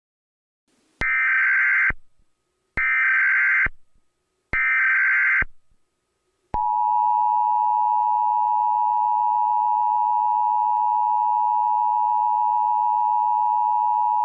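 Emergency Alert System tones: three short SAME header data bursts, a little under a second each with short gaps between them, then the steady two-tone EAS attention signal (853 and 960 Hz), which begins about six and a half seconds in. Together they mark the start of a new alert message.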